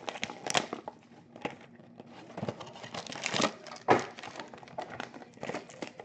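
Plastic wrapping crinkling and rustling as sports card packaging is handled, with irregular sharp crackles and a few louder snaps.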